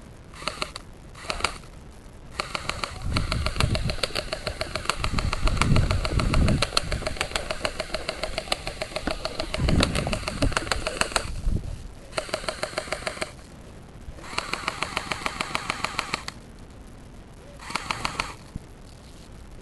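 Airsoft gun firing rapid full-auto bursts of fast, even clicks. A long burst of several seconds comes in the middle, with shorter bursts before and after, and low rumbles of movement under the long burst.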